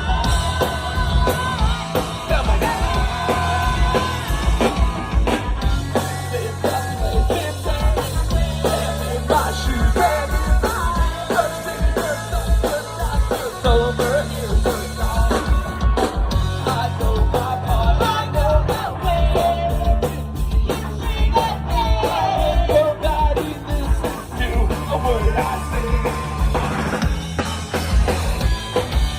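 Pop-punk band playing live and loud: a steady drum-kit beat, bass and distorted electric guitars, with a melodic line wavering over the chords and a quick run of drum hits about two-thirds through.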